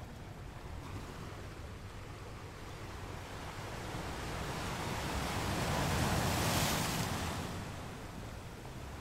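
A rushing noise that builds slowly, peaks about six to seven seconds in and fades again.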